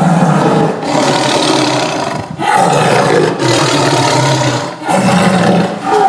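Tiger roaring loudly in a run of about five harsh, rough calls, one after another with short breaks between.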